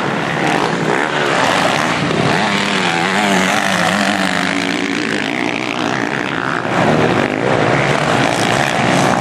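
Motocross bike engines revving on a dirt track as riders race past. A nearer engine's note wavers up and down in the middle, followed by a rising rev.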